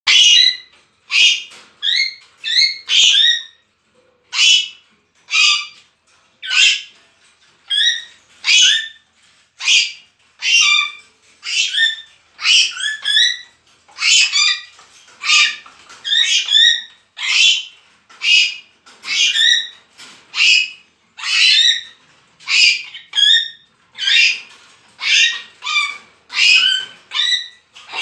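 African grey parrots squawking loudly, one short, high call about every second, over and over.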